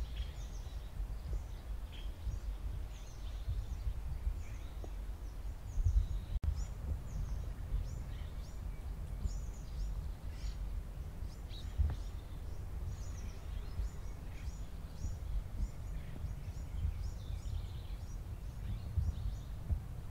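Steady low outdoor rumble with faint, scattered high chirps of small birds throughout.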